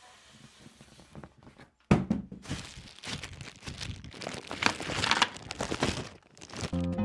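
Packaging of a speaker being handled during unboxing. About two seconds in there is a thump, then several seconds of crinkling and rustling with many small clicks.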